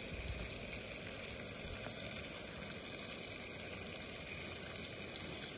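Brook trout frying in a pan on a Jetboil gas camp stove: a steady, even sizzle.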